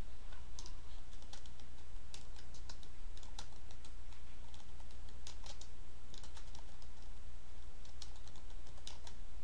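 Typing on a computer keyboard: short runs of quick keystrokes with brief pauses between them, over a steady low hum.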